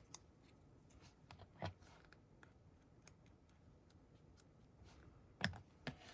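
Quiet paper-crafting handling: a few faint, sharp clicks of scissors and paper, the loudest about five and a half seconds in.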